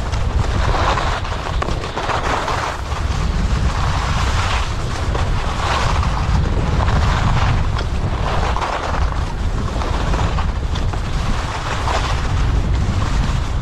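Skis hissing and scraping over groomed snow, swelling with each turn about every second and a half, over a steady low rumble of wind.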